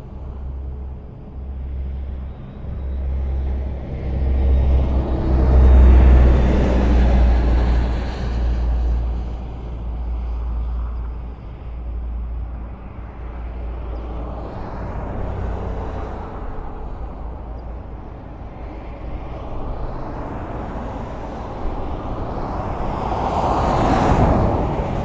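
Highway traffic with a steady rumble of cars and tyres on the road. Vehicles swell up and fade away as they pass, one loud pass about six seconds in and another near the end.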